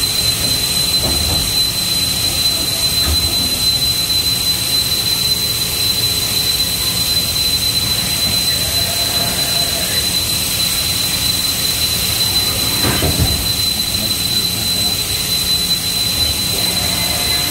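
Steady machine-shop noise: a loud, even hiss with a constant high-pitched whine over it. There is a brief knock or scrape about 13 seconds in.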